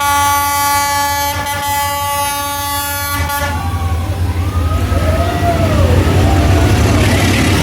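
Train horn sounding one long steady blast for about three and a half seconds, then the approaching train's rumble building louder.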